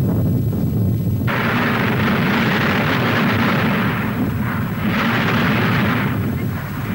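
Mount Etna's small ash crater hissing loudly as it vents hot sulphurous gas. The hiss cuts in suddenly about a second in over a low rumble, swells and eases in waves, and fades near the end.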